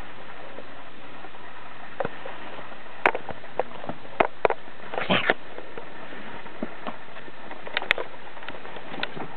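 Siberian husky puppy sniffing and scrabbling right at the camera: scattered short taps and rustles, the loudest a brief burst about five seconds in, over a steady hiss.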